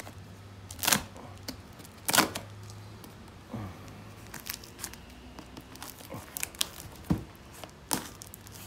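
The brown paper and packing-tape wrapping of a parcel being ripped and crinkled open, with sharp tearing sounds about one and two seconds in and twice more near the end.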